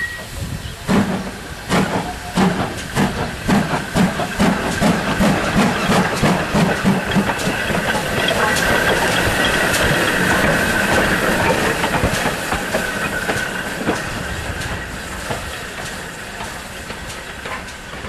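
GWR 5101 Class 2-6-2T steam tank engine No. 4160 pulling away with its cylinder drain cocks open: exhaust beats about two a second, then a steady hiss of steam and clanking motion as it passes close, fading as it moves off.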